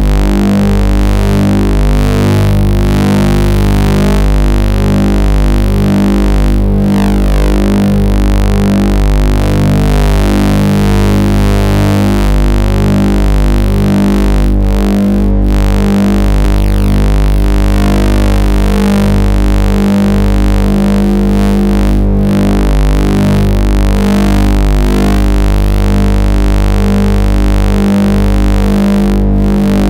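Loud electronic synthesizer-like tones over a deep steady drone, the pitches shifting every fraction of a second. It is the sound-card signal that also draws the red squiggles on the screen.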